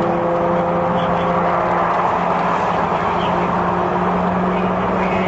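Steady road-traffic and vehicle noise: a constant wash of tyre and engine sound with a low, even engine hum underneath.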